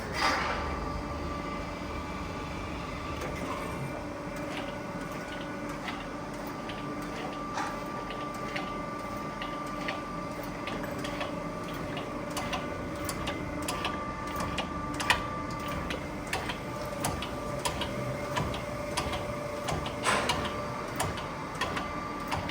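Okamoto PSG 63 UAN surface grinder running: a steady machine hum with several held tones, overlaid by frequent short clicks and ticks.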